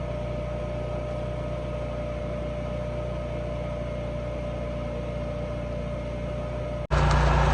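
Truck-mounted engine-driven welder's engine running steadily, a constant drone with a fixed hum. Near the end, after a split-second break, it comes back noticeably louder and fuller.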